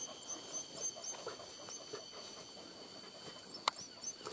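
Hunting dogs whining and panting faintly over a steady high-pitched insect drone, with small bird chirps. One sharp click stands out a little before the end.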